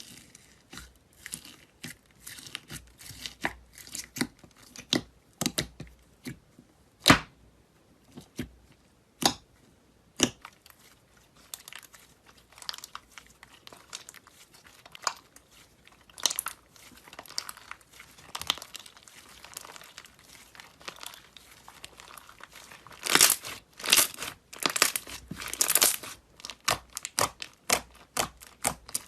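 Slime being squished and played with, giving irregular crackling pops and clicks, densest a little before the end.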